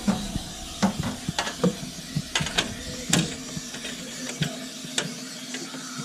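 Irregular small clicks and light metallic taps, about a dozen over five seconds, as a furnace flame sensor is fitted back by hand into its bracket on the burner assembly.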